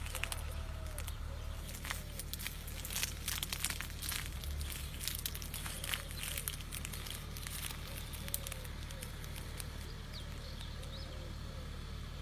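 Footsteps crunching and crackling through dry grass, the crackles thickest in the first half and thinning out later. A low steady rumble sits under them, and a string of short calls comes and goes in the background.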